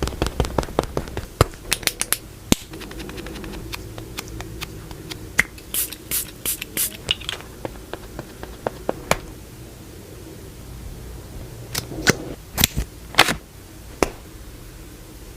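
Makeup products handled close to the microphone: quick tapping and clicking of cases and tools, with a run of short hissing swishes about six seconds in and another flurry of clicks near the end.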